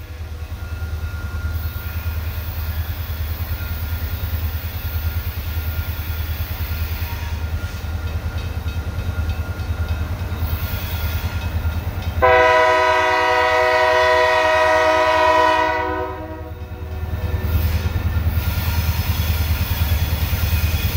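New England Central diesel locomotive approaching with a steady low engine rumble. About twelve seconds in, its air horn sounds one long blast of about three and a half seconds.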